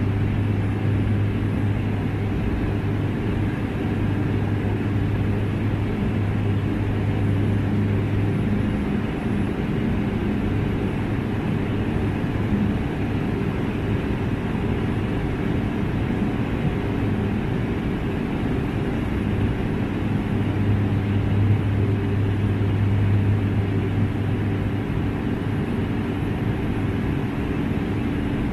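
De Havilland Otter floatplane in cruising flight: the engine and propeller drone steadily, with rushing air. A low hum in the drone fades about nine seconds in and comes back after about eighteen seconds.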